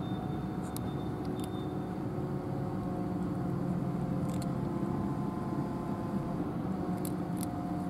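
A cat chewing dry kibble, giving a handful of short, sharp crunches scattered through, over a steady low rumble in the background.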